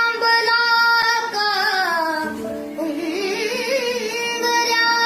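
A boy singing in a high, clear voice: a long held note that slides down about two seconds in, then a lower line with wavering ornaments.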